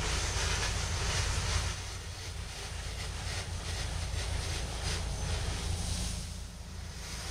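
Pressure washer spraying: a steady hiss of water from the wand over the low hum of the machine's engine, the hiss swelling and easing as the spray is moved.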